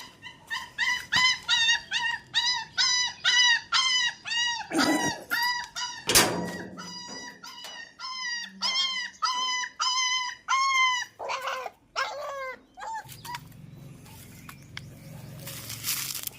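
Puppy crying: a quick run of short, high-pitched whining yelps, about three a second, broken by two knocks about five and six seconds in. The cries thin out and stop about thirteen seconds in.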